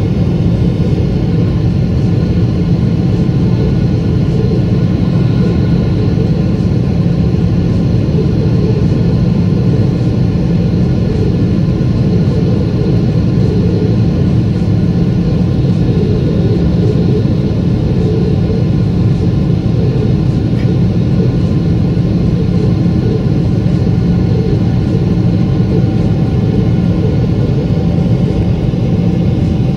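Jet airliner cabin noise by the wing during the climb after takeoff: the engines and rushing air make a loud, steady roar, with a faint high whine over it.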